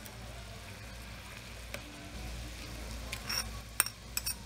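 A low steady hum, then a few sharp clinks near the end as a metal spoon knocks against the bowl and pan while minced garlic is tipped into the pan.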